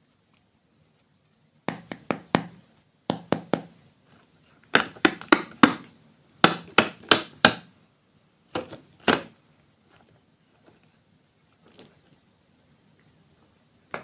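Sharp knocks in quick runs of two to five, repeating for several seconds.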